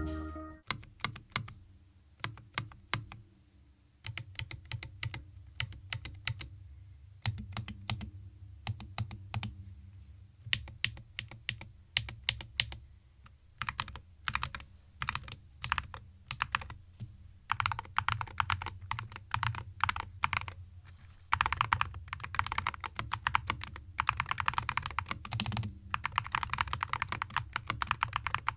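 Dry Studio Ice Ring 63 RT keyboard with TTC KOM magnetic switches being typed on: separate keystrokes at first, building into fast, dense typing in the second half.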